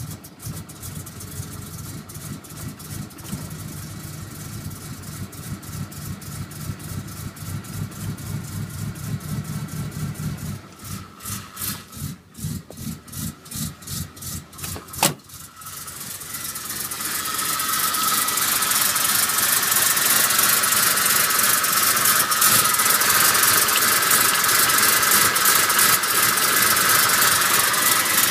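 Freshly rebuilt Ford 460 big-block V8 idling with the uneven, pulsing beat of a lumpy cam through Harley-Davidson dual mufflers. About fifteen seconds in there is a sharp click, and the engine is then revved up and held at a louder, steady higher speed.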